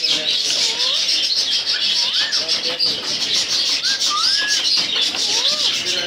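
Many birds chirping in a dense, constant chatter, with about five separate whistled calls that rise and fall in pitch.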